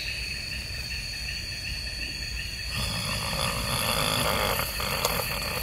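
A steady chorus of night insects trilling and pulsing. About halfway through, a person starts snoring with a rough, drawn-out breath.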